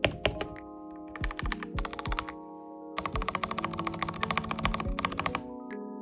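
Clicky-thocky key presses on a mechanical keyboard with a polycarbonate plate and Gateron yellow milky switches, the spacebar being tapped quickly at the start, then a sparse run of presses and, about three seconds in, a dense run of fast typing until near the end. Soft background music plays under the keys.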